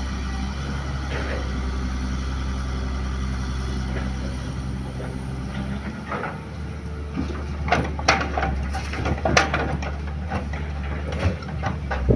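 Kobelco excavator's diesel engine running steadily on site. From about seven seconds in come a series of sharp knocks and clatter as soil is loaded into a dump truck.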